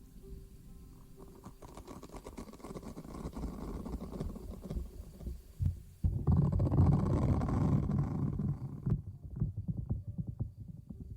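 Close-up rustling and rubbing right against the microphone: a dense crackling scrub that builds gradually, jumps louder about six seconds in, and breaks into scattered crackles about three seconds later.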